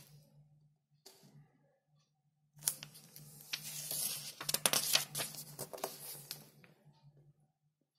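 Paper pages of a bound manual being turned and pressed flat by hand: a dense rustling, crackling run of paper noise with sharp little clicks, from about two and a half seconds in until it dies away near the end, after a couple of light rustles at the start.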